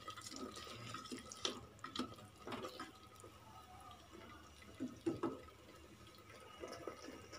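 Spatula stirring thick tomato masala in a pressure cooker pot: faint, scattered wet squelches and light scrapes, ending about five seconds in.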